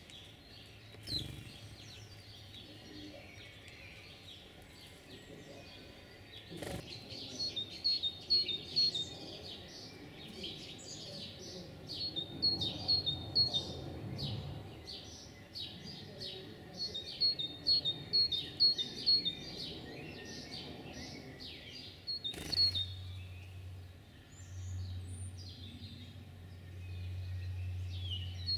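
Songbirds singing and chirping, with one bird repeating a short phrase of about five quick, high notes several times. A few sharp clicks sound, and a low steady hum comes in about two-thirds of the way through.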